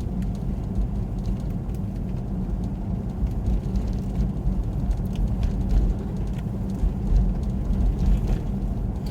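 Steady low rumble inside a car coasting slowly on a snow-covered road: tyre and road noise with the engine, a few faint ticks over it.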